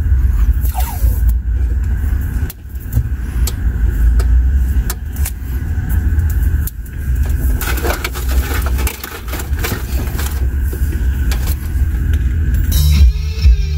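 A steady low rumble with scattered clicks and knocks as audio cables and a plug-in adapter are handled. About a second before the end, music with guitar starts playing.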